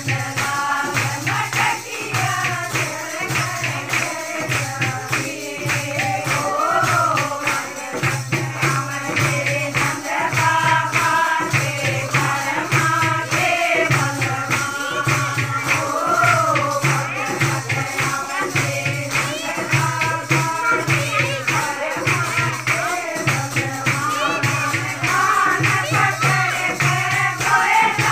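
A group of women singing a song together to rhythmic hand-clapping that keeps a steady beat.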